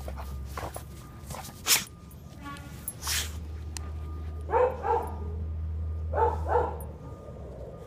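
A dog chewing a plush toy, its squeaker giving two quick pairs of high squeaks about halfway through and again near the end. There is a sharp click in the first couple of seconds.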